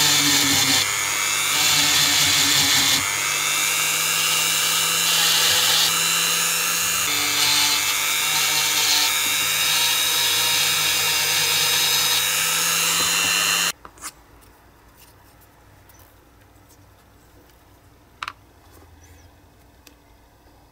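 Handheld Dremel rotary tool running at high speed, its small bit drilling and grinding into the bare diecast metal body of a toy car, the motor's note shifting a few times as the bit bites. It stops suddenly about two-thirds of the way in, followed by a couple of faint clicks.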